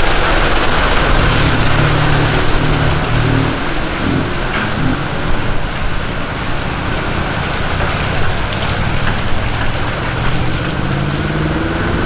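Road traffic: vehicle engines running and passing over a steady rushing noise, with another engine sound rising near the end.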